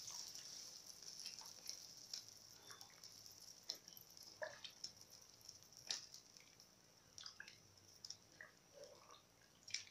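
Faint stirring in an aluminium pot: scattered soft clinks of a metal spoon against the pot and small splashes of rice and pieces stirred in hot water, over a steady faint high hiss.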